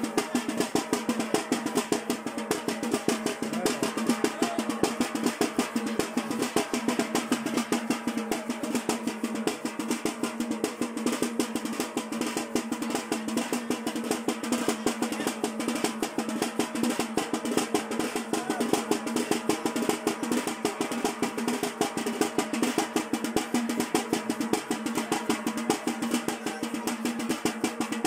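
Fast, steady drumming of dense rapid strikes, keeping time for a traditional men's wedding dance.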